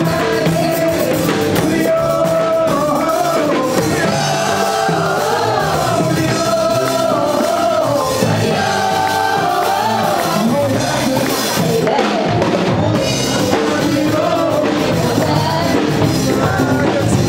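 Upbeat band music with a voice singing a melody that bends up and down, over drums.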